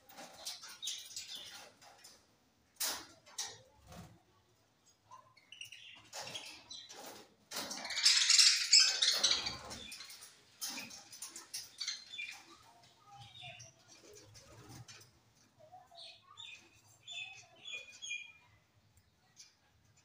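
A flock of budgerigars chirping and chattering in an aviary, with wings flapping as birds flutter between perches. The loudest flurry comes about eight seconds in and lasts about two seconds.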